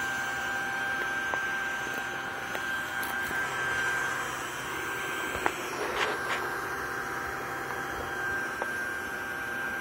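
Steady whine and rush of a small electric blower motor running on a homemade wood gasifier system. A few brief clicks and rustles come around the middle.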